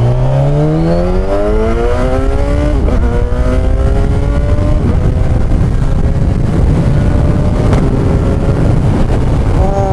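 Kawasaki Ninja 1000SX inline-four under hard acceleration, its revs climbing steeply with quick gear changes about three and five seconds in, then a steadier climb and the revs falling as the throttle closes near the end. The bike has a Black Widow bend pipe with the stock end can.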